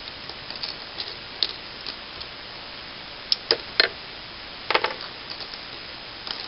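Small plastic pieces of a disassembled 5x5x5 Rubik's cube clicking and tapping against each other and the table as they are picked up and set down. The clicks come singly and in short clusters, with the sharpest a little under four seconds in and another group near five seconds.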